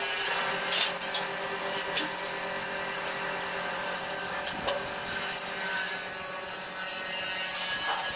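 Scattered clicks and knocks of the thresher's red sheet-metal cover and hood being handled and fitted, over a steady low hum.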